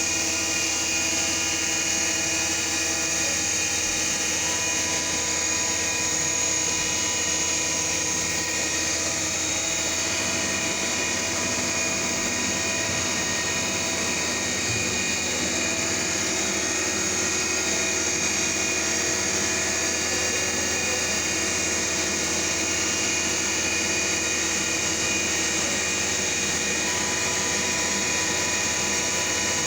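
CNC milling machine running steadily as it mills the groove of a reversing shaft turned on its fourth, rotary axis: an even spindle whine with several steady tones and a strong high note, at a constant level.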